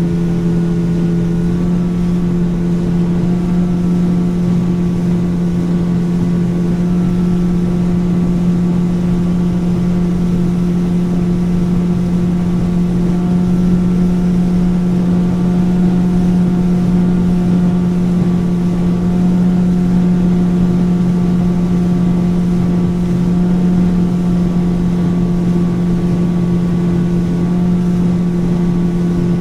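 Motorboat engine running at a steady cruising speed: a constant, even drone that neither rises nor falls.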